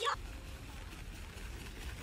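Steady outdoor background noise: an even hiss over a low rumble, with no distinct events.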